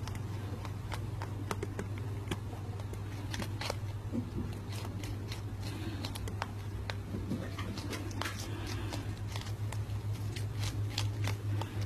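Lop-eared rabbit eating a strawberry held out by hand: quick, irregular clicks of biting and chewing, over a steady low hum.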